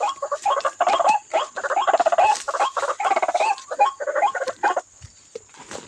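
White-breasted waterhen calls: a rapid, fairly loud run of repeated grunting croaks that stops abruptly about five seconds in.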